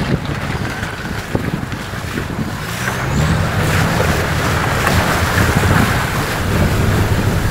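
Off-road 4x4 engine running steadily while fording a shallow, rocky river, with water rushing and splashing around the tyres. The engine sound grows louder about three seconds in.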